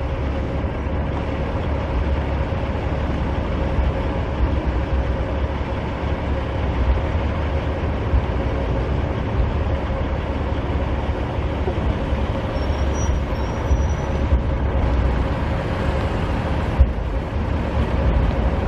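Steady low rumble with a faint steady hum.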